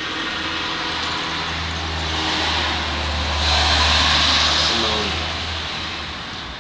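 A road vehicle passing by: engine hum and tyre noise swell to a peak about four seconds in, then fade away.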